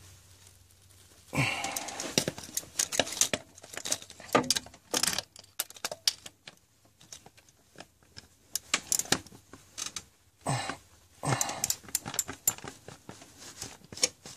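Ratchet and socket clicking in short runs of strokes with pauses between them, tightening a bolt on a Mercedes thermostat housing into the aluminium engine block.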